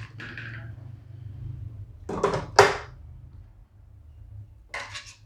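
A few short knocks and clatters of kitchen items being handled, the loudest a sharp knock about two and a half seconds in, over a low steady hum.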